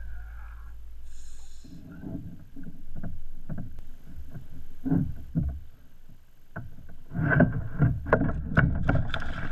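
Irregular knocks, thumps and handling noises on a plastic sit-on-top kayak, sparse at first and coming thick and louder from about two thirds of the way in. The tail of a song ends about a second and a half in.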